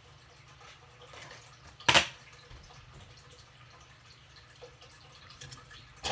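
Sharp taps: a loud one about two seconds in and a smaller one near the end, with a few faint ticks, over a faint steady low hum.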